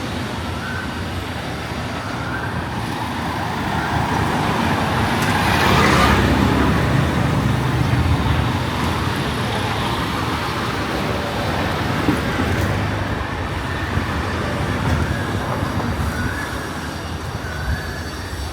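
Street traffic noise, with a vehicle passing close that swells to its loudest about six seconds in and then fades back into the steady background.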